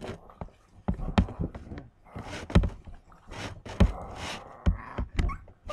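Rough rubbing and scraping of a hand working through a small dog's fur and bedding, broken by several sharp, irregular knocks.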